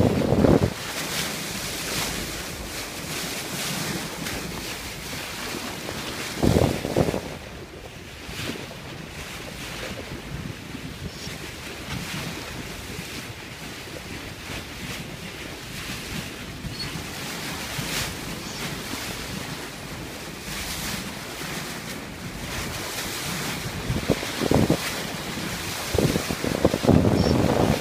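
Wind buffeting the microphone over the steady rush of sea water along a moving boat's hull, with louder bursts about seven seconds in and several more near the end.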